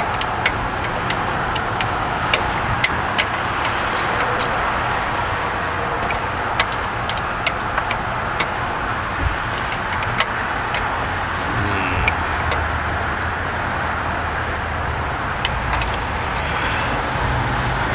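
Steady rumble of traffic on a busy road, with irregular sharp metallic clicks and clinks from hand tools working on a car's engine-mounted fuel pump.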